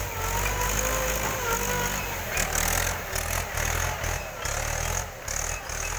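Mahindra 415 DI tractor's four-cylinder diesel engine running under load as the tractor drives over a thick layer of paddy straw, threshing rice by treading it out. Its level swells and dips a few times in the middle.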